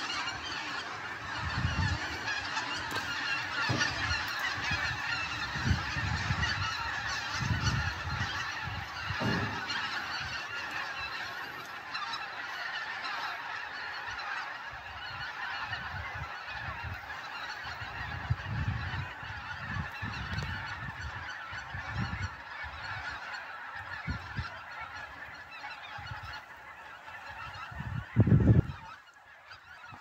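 A large flock of geese flying overhead, a dense continuous chorus of honking calls from many birds at once. Low rumbling buffets hit the microphone every second or two, the loudest one near the end.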